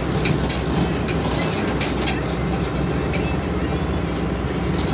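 Diesel engines running steadily, from a hydraulic excavator close by and a Powertrac tractor pulling an empty trolley away, with a few sharp clicks and knocks through the drone.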